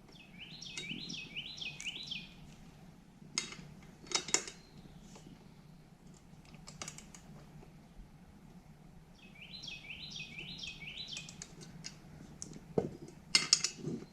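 A small bird's quick repeated trill of rising chirps sounds twice, at the start and again past the middle. Between them come a few sharp metal clicks and knocks from tightening small bolts with a torque wrench, the loudest a quick cluster near the end.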